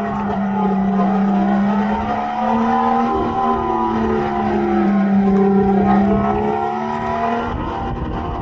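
Synthetic engine sound from electric go-karts, a steady motor-like drone whose higher tones swell and fall as the karts speed up and slow down around the track.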